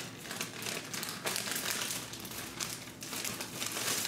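Clear plastic bag holding coiled sample tubing crinkling as it is handled and opened, in an irregular run of crackles that is loudest near the end.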